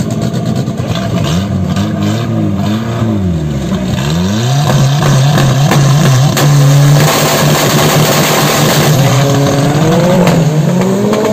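Drag-race car engine revving: several rises and falls in revs over the first few seconds, then held steady at high revs for about five seconds with a harsh noise over it, and revs climbing again near the end.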